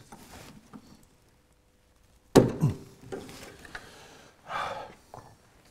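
One sharp metallic knock about two and a half seconds in, followed by a few lighter knocks and scrapes: a makeshift hammer striking at a stuck split pin in a Land Rover track rod end to tap it out.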